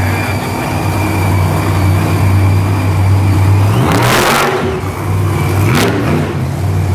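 Monster truck's supercharged V8 idling with a steady low rumble, then revved twice, about four seconds in and again near six seconds, the pitch rising with each rev.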